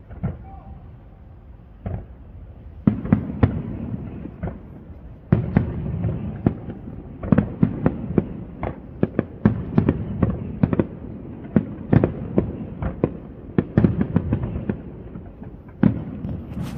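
Fireworks display: a couple of single bangs, then from about three seconds in a dense run of shell bursts and crackling bangs over a steady low rumble.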